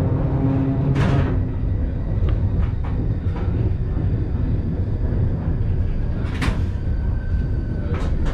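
Vintage electric train running on the track, heard from the driver's cab: a steady low rumble with sharp clunks about a second in, about six and a half seconds in and again near the end.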